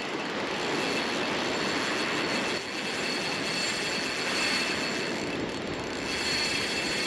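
Penn Battle spinning reel's drag buzzing steadily as a hooked fish runs and pulls line off the spool, with breaking surf behind it.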